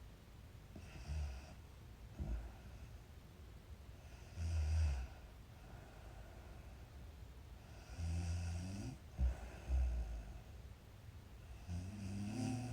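A girl snoring in her sleep: about six irregular snores, some short and some lasting nearly a second, with uneven gaps between them.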